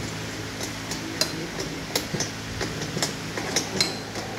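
Irregular metallic clicks and clinks of a hand spanner working the nuts and bolts that fasten a metal swivel caster to a plastic platform trolley, over a steady low fan hum.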